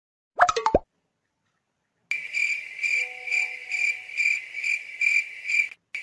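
Cricket chirping: a steady high trill pulsing about twice a second, starting about two seconds in. Just before it, under a second in, comes a brief quick cluster of pops.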